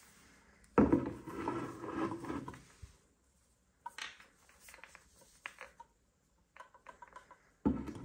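Gloved hands handling a hand-painted resin bobblehead figure on its base. There is a loud burst of scraping and rubbing about a second in, scattered light taps and clicks as the figure is turned round, and another sudden loud handling sound near the end.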